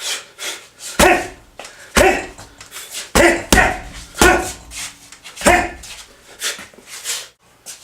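Punches landing on a refrigerator weighted with rocks, cement and lead, used as a heavy bag: loud, sharp blows at an uneven rate of roughly one a second, a quick double about three seconds in, each with a short ringing tail from the fridge's panels, with lighter blows in between.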